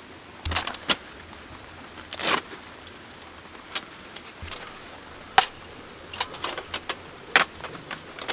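Irregular clicks, light knocks and short rustling scrapes of small objects being handled, with the sharpest click about five seconds in.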